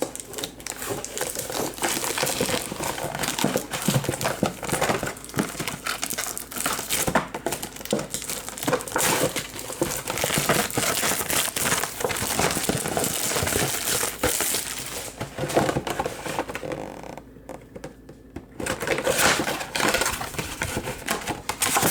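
Plastic packaging of a Topps Chrome trading card box crinkling and rustling in dense, irregular crackles as the box is unwrapped and opened, with a short lull near the end.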